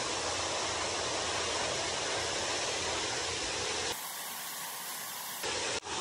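Steady rush of a waterfall and the shallow stream below it. About four seconds in the low rumble drops away and the sound turns thinner and hissier for about a second and a half before the full rush returns.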